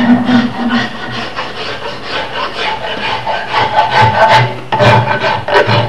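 Fiberglass panel rasp filing a wooden axe handle by hand, in repeated rasping strokes as the handle is shaped thinner.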